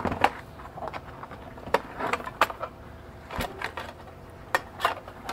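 Scattered clicks and light knocks as the sheet-steel case of an ATX computer power supply and its bundled wiring are handled and pulled at, trying to work the case halves apart.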